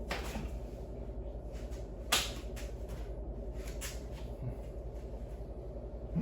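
A few sharp clicks and knocks, the loudest about two seconds in, over a steady low hum.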